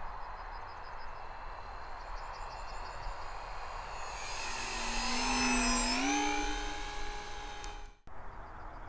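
Motor and propeller of a radio-controlled motor glider whining as the plane makes a low pass: the whine swells about halfway through, shifts in pitch as it goes by, then fades. The sound cuts out abruptly near the end.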